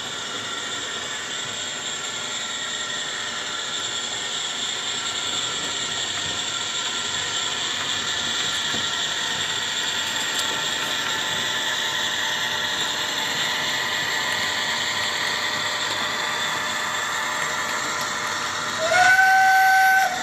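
MTH Premier O-gauge model of a Pennsylvania Railroad BB1 electric locomotive running, its sound system playing a steady hissing rush of the cooling fans that made the real locomotives noisy. About a second before the end, a loud two-tone horn blast starts and is held.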